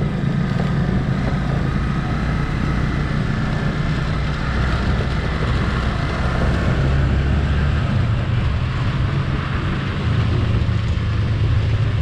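Motorcycle riding along a road, its engine and road noise running steadily; the low engine note changes about eight seconds in.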